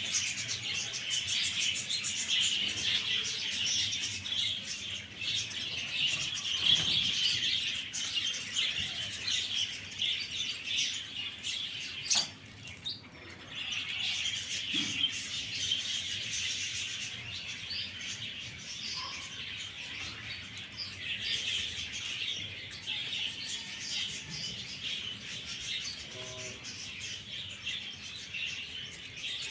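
Many small birds chirping continuously in a dense, overlapping chatter. The chatter briefly drops away about twelve seconds in, just after a sharp click, then resumes.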